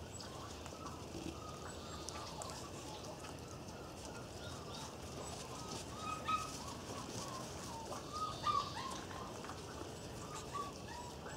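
Irish terrier puppies squeaking and yelping as they play-fight, with short high squeals again and again; the loudest come about six and eight and a half seconds in.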